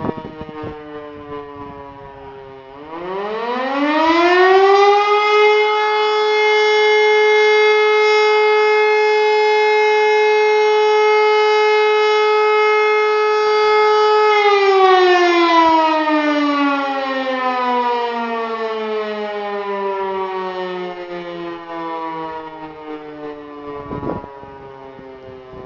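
E57 electromechanical motor siren sounding one tone of the interrupted fire-alarm signal: the tail of the previous tone falls away, then the rotor spins up again with a rising wail about two and a half seconds in, holds a steady loud tone for about eight seconds, and winds down in a long falling glide.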